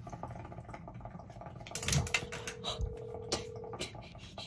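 A telephone ringback tone sounds once for about two seconds while an outgoing call rings, over scattered light clicks and handling noise.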